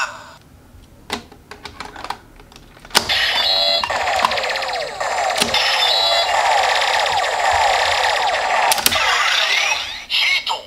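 Bandai CSM Double Driver toy transformation belt: a few plastic clicks as two Gaia Memories are pushed into its slots, then from about three seconds in its loud electronic standby sound effect, a warbling, sweeping tone. A sharp click near the end as the driver is snapped open.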